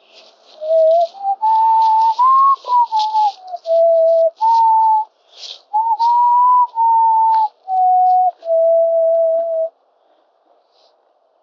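A person whistling a slow, mournful tune, one clear note at a time with audible breath, the melody climbing and then settling lower before it stops near the end.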